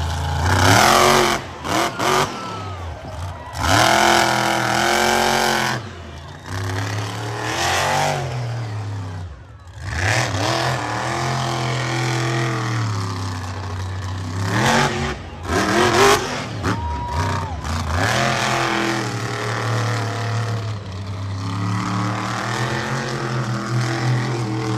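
Monster truck engine revving hard in repeated bursts, its pitch climbing and falling as the throttle is worked. About nine seconds in it drops off sharply before coming back up.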